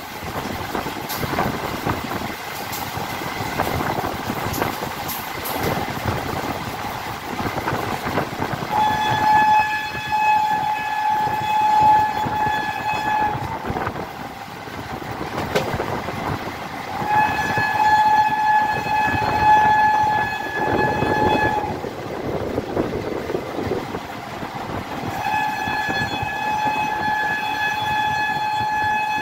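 Electric locomotive horn giving three long blasts of about four seconds each, the first about nine seconds in and the last running on past the end, over the running noise and wheel clatter of the train on the rails.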